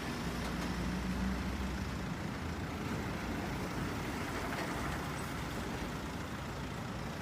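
A steady, even vehicle engine rumble with hiss, like a truck idling, with no changes or strokes.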